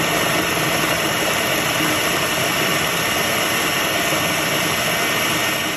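Electric food processor motor running steadily, its blade chopping a bowl of hot peppers into a coarse mash.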